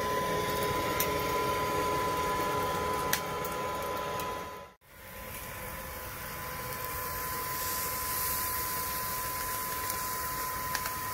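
Charcoal grill with a steady fan-like whir and a thin whine, and a few light metal clicks. After a break about five seconds in, skewered chicken pieces sizzle on the hot grill grate, the hiss growing brighter from about seven seconds in.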